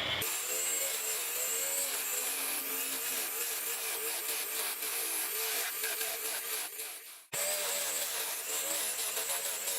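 Wood spinning on a homemade lathe being cut with a turning tool: a steady rough scraping with a faint wavering hum underneath. It breaks off abruptly about seven seconds in and starts again at once.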